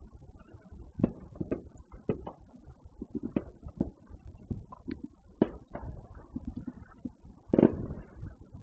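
Fireworks going off: an irregular string of bangs and pops, the loudest one near the end.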